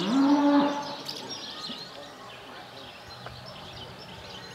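Small birds chirping and twittering in a busy chorus. Right at the start there is one loud drawn-out call that rises in pitch and then holds for under a second.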